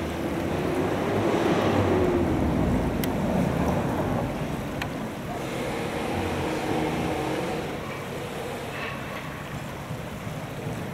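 Shallow stream water rushing and splashing steadily over a low stone ledge, a little louder for the first few seconds.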